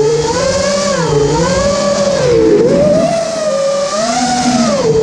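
Brushless motors and propellers of a 5-inch FPV freestyle quadcopter whining, heard from the onboard camera. The pitch rises and falls repeatedly as the throttle changes through the flight.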